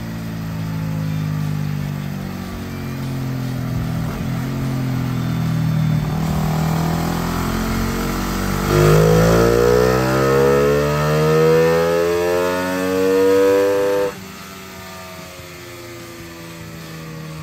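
1998 Suzuki FX125's DOHC engine running on a dynamometer during a test pull with a smaller carburettor main jet. It runs and shifts pitch for the first several seconds, then climbs steadily in pitch and loudness for about five seconds at its loudest, and the throttle is shut abruptly about fourteen seconds in, dropping it back to a quieter idle.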